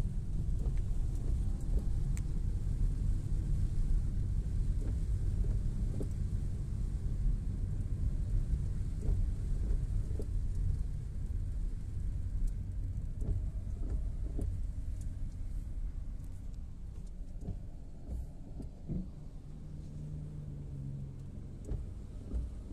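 Low steady rumble inside a car's cabin driving through heavy rain: engine and tyres on a wet road, with faint scattered ticks, easing off somewhat in the second half.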